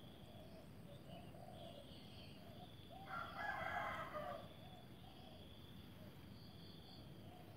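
A rooster crowing once, about three seconds in, for about a second and a half, over faint background noise.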